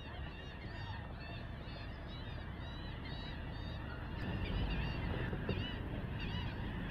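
A flock of birds calling in the distance, many short honking calls overlapping. A low rumble builds about four seconds in.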